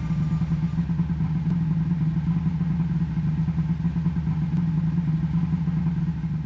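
A boat engine running steadily, a loud low drone with a fast, even pulse. A little background music fades out at the start.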